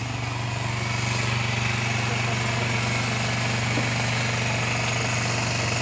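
A steady low mechanical hum with a constant low drone, getting slightly louder about a second in.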